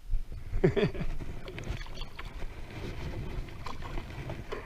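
Scattered knocks and rattles of handling in a small fishing boat, over a low steady rumble, with a brief low sound sliding in pitch just under a second in.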